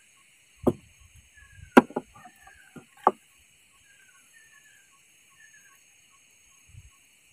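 Three sharp knocks within the first few seconds. Behind them a bird repeats a short falling chirp about twice a second over a steady high insect drone.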